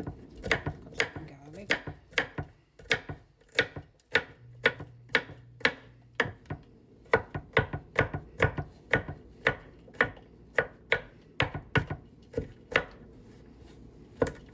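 Kitchen knife chopping garlic on a cutting board: steady, sharp knocks about two a second, pausing briefly about four seconds in and again near the end.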